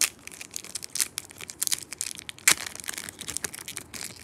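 Foil wrapper of a Pokémon card booster pack crinkling and tearing as it is pulled open by hand, in a run of irregular crackles, the sharpest about two and a half seconds in.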